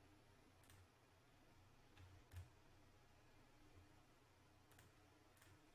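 Near silence: room tone, with a few faint computer mouse clicks.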